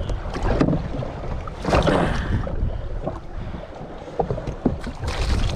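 Wind rumbling on the microphone over choppy water slapping a jetski, with a few light knocks and a louder rush of noise about two seconds in.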